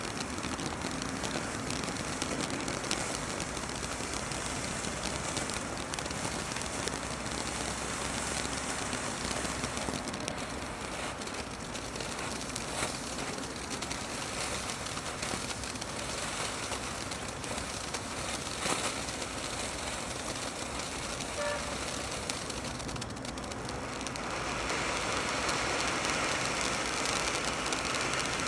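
Peacock Fountain multi-effect ground firework burning: a steady rushing hiss of spraying sparks, broken by a few sharp cracks and pops. About 24 seconds in the hiss grows louder and brighter.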